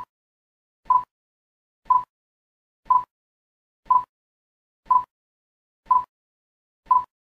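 Countdown beeps: short electronic beeps all at one pitch, one each second, eight in a row, ticking off the numbers of a countdown.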